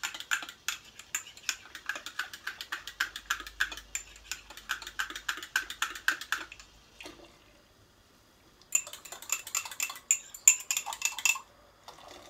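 A spoon stirring quickly in a mug, clinking against its sides several times a second as coconut milk powder is mixed with warm water. The stirring stops about six and a half seconds in, then starts again for a few seconds.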